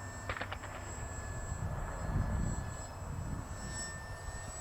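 Electric motor of an H-King Savage Bobber RC plane running in flight, a steady whine, over a low rumble of wind on the microphone.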